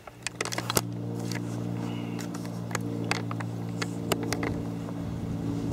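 An engine running steadily at an even pitch, with a few light clicks and knocks over it.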